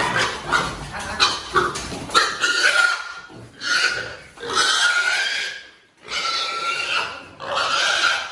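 Pigs squealing loudly: a run of about five long, high squeals with short breaks between them.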